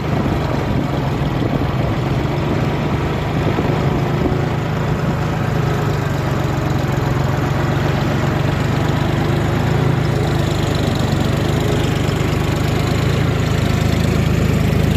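John Deere 5050D tractor's three-cylinder diesel engine running steadily under load as the four-wheel-drive tractor pulls a plough through the soil, heard close up from the tractor.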